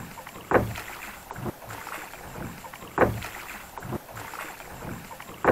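A small boat being rowed across calm lake water: three strokes about two and a half seconds apart, each a short swish of water.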